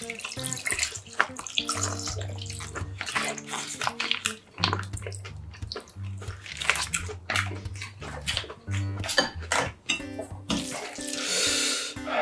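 Cold naengmyeon broth pouring from a cut plastic pouch into a glass bowl of sliced raw seafood and vegetables, with small clicks and rustles of handling.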